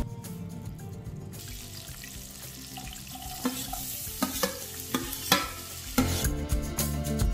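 Chopped onions sizzling as they go into hot oil with cumin seeds in an aluminium kadai, a steady frying hiss with a few sharp knocks against the pan. Background music comes back in about six seconds in.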